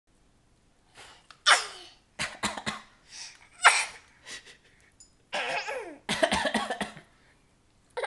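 A string of short coughs in several bouts: a nine-month-old baby's imitation coughs, copying a parent's cough.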